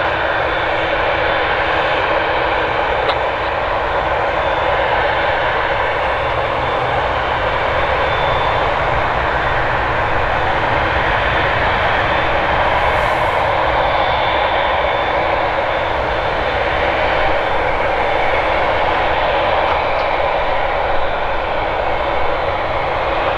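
Boeing 787-9 Dreamliner's GEnx turbofans at taxi power as the jet rolls along the taxiway: a steady jet rush with a faint high whine, even throughout.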